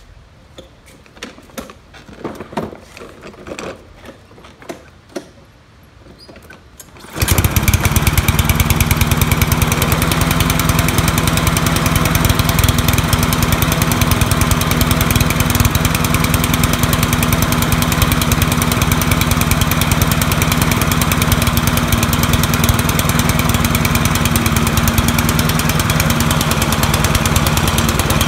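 A few light clicks and knocks, then the Craftsman mower's 159cc single-cylinder engine starts abruptly about seven seconds in and runs at a steady speed. It is running on choke because its automatic choke will not open.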